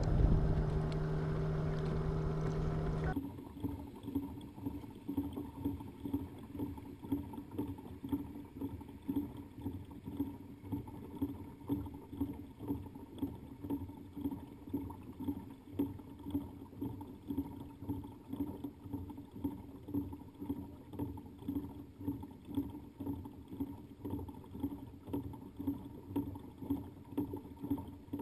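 Pedal-drive kayak under way: the pedal drive works in an even rhythm, pulsing a little over once a second with each stroke over a steady low whir. It is preceded by about three seconds of a louder steady hum that stops suddenly.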